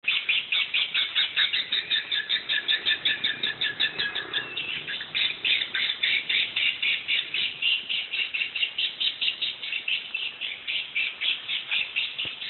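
Recorded swiftlet call of the kind played to draw swiftlets into a nest house: a fast, even train of high, sharp chirps, about six a second.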